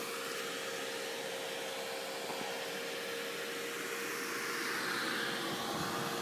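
Newly built desktop PC running just after power-on: its case fans whir in a steady rush of air over a faint steady tone, the air noise swelling a little about four to five seconds in.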